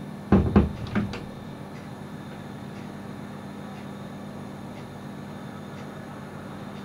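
Four quick knocks in a cluster within the first second, the first two the loudest. A steady low hum and hiss runs under them.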